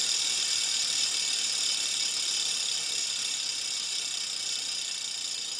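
A steady, high hiss of noise with no tone or rhythm in it, easing off slightly over the seconds.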